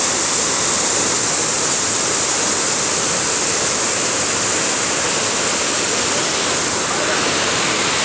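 Large waterfall pouring into a rock gorge: a loud, steady rush of falling and churning water.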